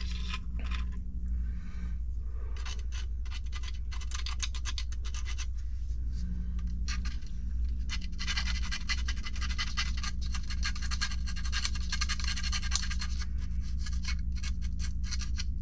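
A small sanding file rasping quickly back and forth inside a hole in a 3D-printed plastic part, cleaning out and enlarging it. The strokes are intermittent at first and become fast and continuous past the middle.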